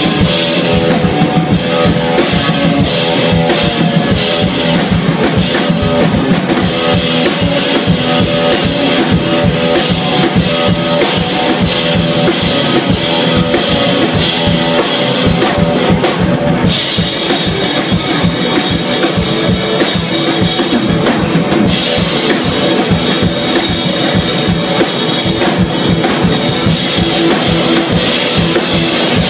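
Live rock band playing an instrumental passage: electric guitar over a drum kit with bass drum and cymbals, played loud. The cymbals wash more heavily for about five seconds past the middle.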